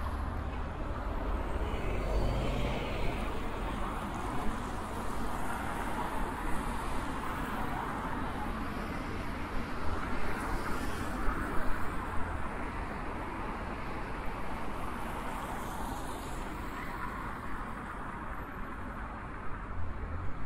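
Traffic and road noise heard from a bicycle: a steady hiss that swells through the middle, with a low rumble of wind on the microphone.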